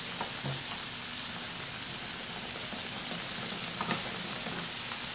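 Lobster tail, shrimp, scallops and beef sizzling steadily on the hot grill plate of an electric hot pot, with a couple of light clicks of the tongs.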